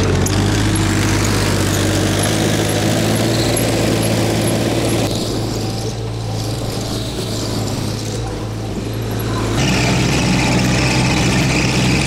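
Terex R070T compact track loader's diesel engine running as the machine tracks away, growing somewhat fainter partway through. About ten seconds in the sound jumps louder, heard from the operator's seat, with a high whine over the engine that a caption puts down to the loader needing a fan belt.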